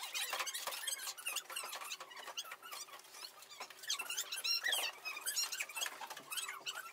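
A classroom of young children talking over one another in high voices, an unclear jumble of chatter, with scattered knocks from desks and chairs.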